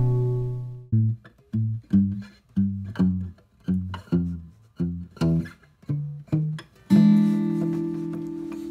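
Background guitar music. A chord rings out and fades, then comes a slow line of single plucked notes, and about seven seconds in another chord is struck and left ringing.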